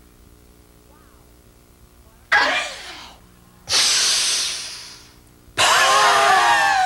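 A woman breathing loudly and oddly during an exercise routine, three forced breaths starting about two seconds in. First a short voiced gasp falling in pitch, then a long hissing breath, then a long voiced exhale sliding down in pitch.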